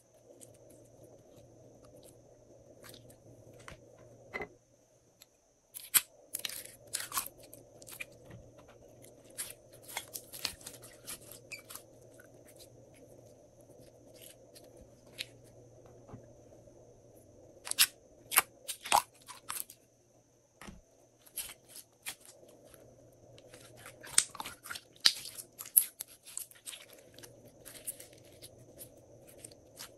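Glossy slime being squished and folded by hand, giving irregular clusters of sticky clicks and crackling pops with quieter stretches between them.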